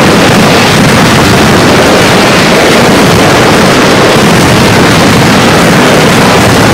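Mascletà firecrackers going off in a rapid, unbroken barrage, the bangs so close together and loud that they merge into one continuous, overloaded din.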